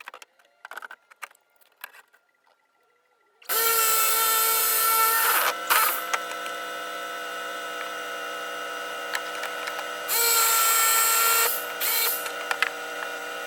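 A few light knocks and clicks, then an electric power tool starts about three and a half seconds in and runs steadily, getting louder and harsher twice, for a second or two each time.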